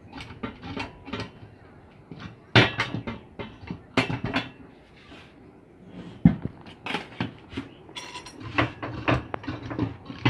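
Steel parts of a home-made band saw mill blade tensioner clinking and knocking as it is handled and its threaded tensioning rod is turned. A few sharper metal knocks stand out.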